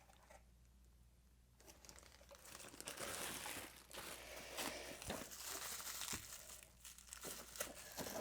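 Packaging crinkling and rustling as parts are dug out of a box, starting about a second and a half in, with small clicks and knocks of parts being handled.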